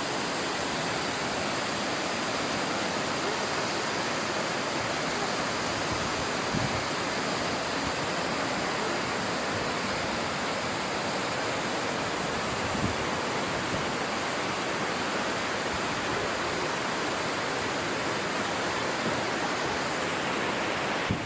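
Waterfall splashing down a mountain gorge into a big river: a steady, unbroken rush of water.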